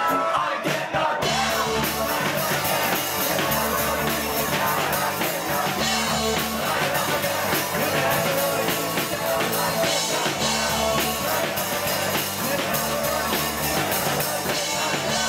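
Live rock band playing: electric guitars, bass guitar and drum kit, with singing. The bass and drums come in fully about a second in, and the band plays on steadily.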